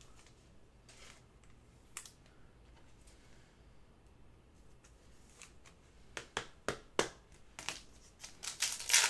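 Trading cards being handled: a few light clicks at first, then a quick run of sharp taps and rustles in the last three seconds.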